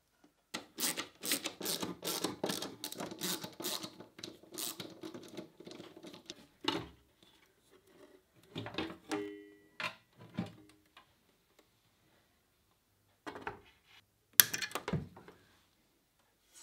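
Sheet-metal electronics housing of a CNC router being opened and handled. First comes a quick, irregular run of scraping and rattling strokes, then scattered clicks and a short squeak. About fourteen seconds in there is a sharp knock, the loudest sound.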